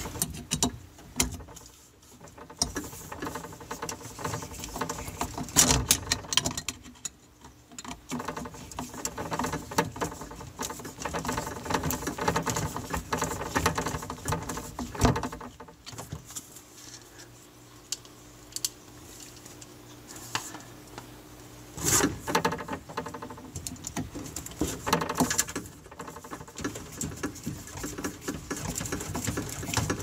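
Hands and a tool working a new drain solenoid onto its metal bracket under a GE dishwasher: irregular clicks, taps and scraping of plastic and metal, in several short clusters.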